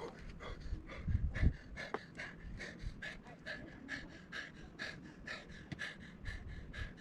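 Rapid, rhythmic panting, about three quick breaths a second.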